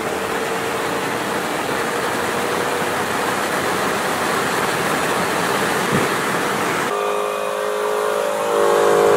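Inside a car at speed: steady wind and road rush over the tuned five-cylinder engine's drone, its pitch rising slowly. About seven seconds in the sound cuts to a steady engine note of cars rolling slowly side by side.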